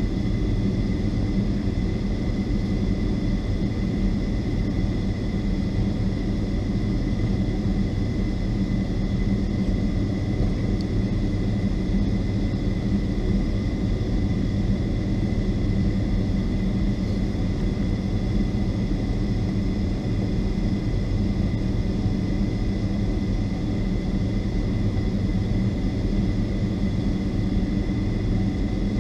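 Inside the cabin of a Boeing 757-200, its Rolls-Royce RB211 engines run at idle while the airliner holds before takeoff. They make a steady low rumble with a constant high whine over it.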